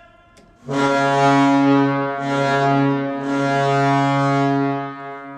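St. Louis Blues arena goal horn, a foghorn-type horn, blown in one long steady blast on a low pitch. It starts just under a second in and fades off near the end.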